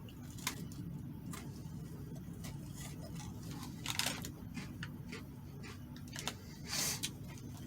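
A man biting and chewing a dry prepackaged cookie: scattered small clicks and two brief crunches, over a steady low hum.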